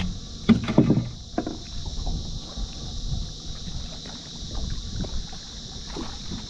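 Knocks and handling noises on a small fishing boat while a hooked diamond trevally is brought to the landing net, loudest about half a second to a second in, over low wind rumble on the microphone and a steady high hiss.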